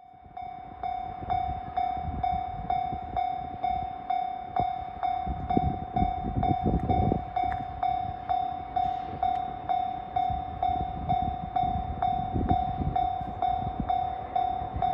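Japanese railway level-crossing warning bell ringing, an electronic clang repeating evenly about twice a second, warning that a train is approaching. Occasional low rumbles sound underneath.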